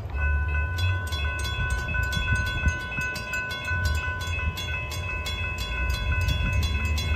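Railroad grade-crossing warning bell starting up and ringing rapidly, a steady ringing tone with a quick run of strikes, as the crossing gates come down: the signal that a train is approaching.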